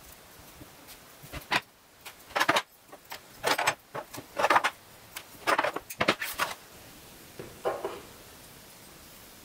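Handling noise from twine, scissors and small terracotta ornaments on a wooden tray: a string of short clicks, snips and scrapes that stops before the end.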